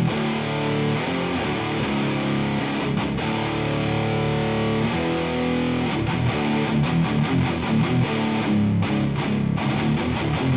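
Heavily distorted electric guitar played through a 100-watt Marshall valve head, chugging hardcore riffs. Held chords give way about halfway through to fast, choppy chugging with short stops near the end.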